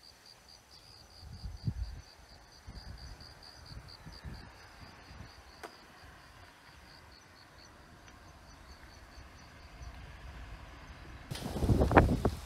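Insect chirping in a steady, high pulsing rhythm, about four chirps a second, over faint low rumble. Near the end a much louder rushing, knocking noise takes over.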